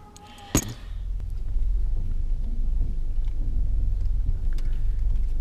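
Steady low rumble inside a Toyota Camry's cabin, rising in about a second after a sharp click. No knock is heard from the steering intermediate shaft, which has just been lubricated: the steering knock is gone.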